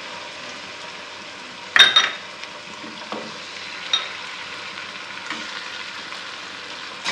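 Raw chicken pieces sizzling in hot oil with browned onions in a stainless steel pot: a steady frying hiss. A sharp metallic clank sounds about two seconds in, with a couple of lighter knocks after it.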